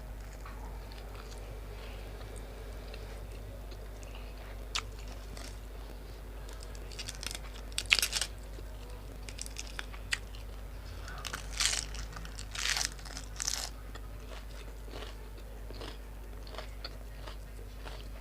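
A person crunching and chewing food close to the microphone, with a few crisp bites about seven to eight seconds in and again around twelve to fourteen seconds.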